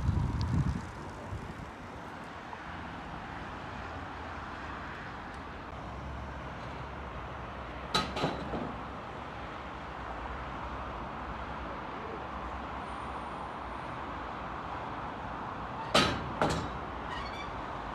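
Steady background noise with sharp knocks: a low rumble that fades out about a second in, a knock about eight seconds in, and a pair of knocks with a short ringing tail near the end.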